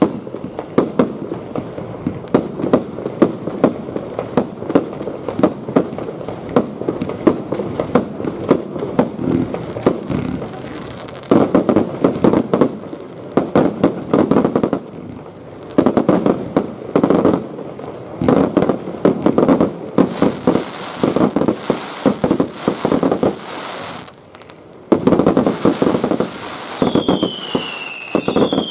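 Crown 'Genesis' fireworks firing: a rapid, continuous stream of launch shots and bursting breaks, with denser, louder clusters of crackle in the second half.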